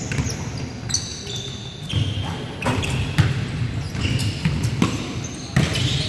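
A basketball bouncing on a hardwood gym floor, with irregular thuds and sneakers squeaking on the boards.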